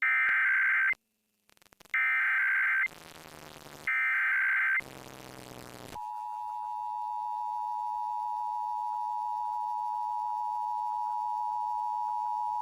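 Emergency Alert System SAME data header: three loud, raspy digital data bursts of about a second each, with fainter sound in the gaps. About six seconds in, the steady two-tone EAS attention signal begins and holds, announcing a Required Monthly Test.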